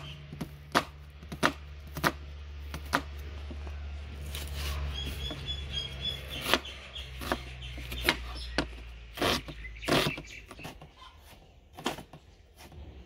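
Knife chopping an onion finely on a cutting board: separate sharp knocks at an uneven pace, roughly one a second, over a steady low hum.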